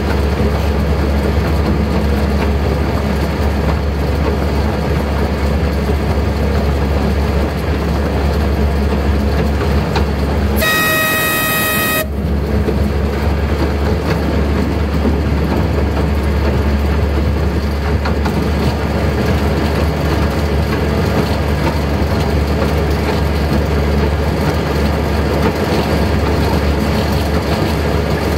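Miniature railway locomotive running, heard from the cab as a steady low rumble. The horn sounds once, a single steady toot of a little over a second, about ten seconds in.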